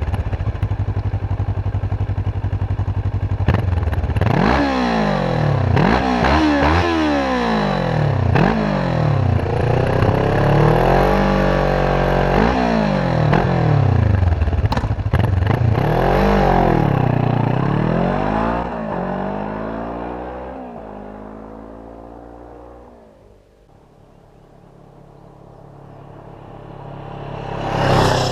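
2008 Kawasaki ER-6n parallel-twin engine idling, then revved hard about seven or eight times, each rev rising and falling back. After that the engine note sinks and fades away, then grows louder again to a peak near the end.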